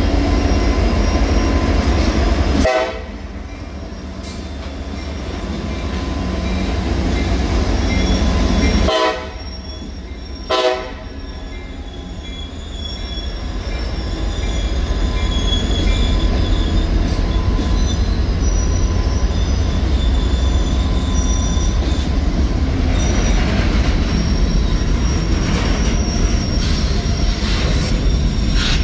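Freight train passing at close range: a trailing diesel locomotive goes by, then a long string of covered hopper and gondola cars rolls past with a steady rumble of wheels on rail. The rumble drops suddenly a few times in the first ten seconds. Thin, high, steady wheel squeals run through the second half.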